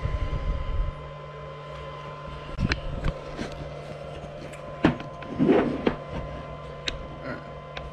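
Handling noise on a workbench: a handful of sharp clicks and knocks and a brief rustle a little past the middle, over a steady electrical hum.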